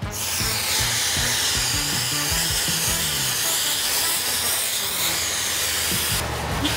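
Aerosol spray-paint can spraying in one long, steady hiss that stops near the end.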